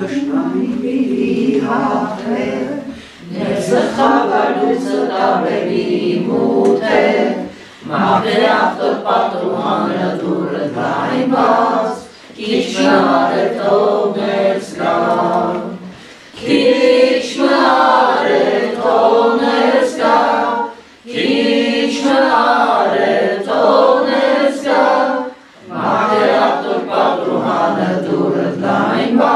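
Unaccompanied hymn singing with no instruments, in phrases of about four seconds separated by short breaths.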